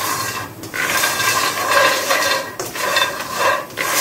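Whole almonds being dry-roasted in a nonstick wok and stirred with a spatula. The nuts rattle and scrape across the pan in several sweeps, with brief pauses between them.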